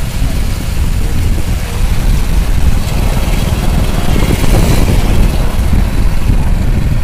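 Loud, steady low rumble of wind buffeting the phone's microphone, mixed with the running noise of the vehicle they are riding.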